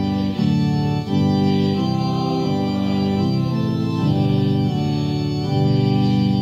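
Organ playing a hymn tune in slow, sustained chords that change about once a second.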